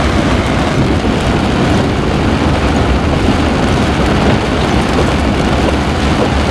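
Vehicle driving through floodwater running across a gravel road, heard from inside: a steady, loud rush of tyre spray and water against the body with a low engine and road rumble.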